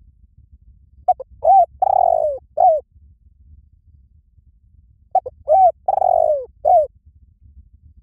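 Spotted dove cooing: two calls about four seconds apart, each a few short coos around one longer coo that falls in pitch.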